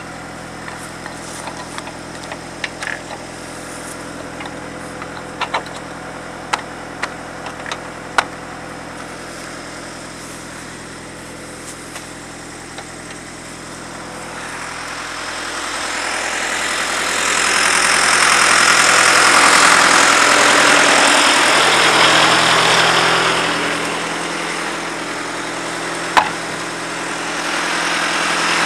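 Sterling truck's diesel engine idling steadily, with a few light clicks and knocks in the first several seconds. About halfway through, a louder rushing noise swells in over the idle, holds for several seconds, eases off and builds again near the end.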